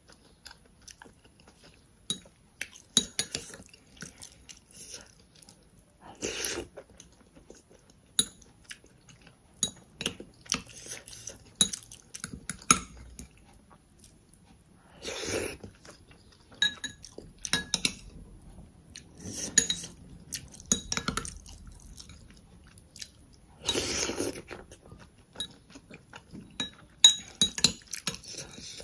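Close-miked eating sounds: chewing a soft Maggi-noodle-and-milk dessert, with a metal spoon clicking and scraping against a glass dessert cup. A few short, louder mouth sounds come about 6, 15 and 24 seconds in.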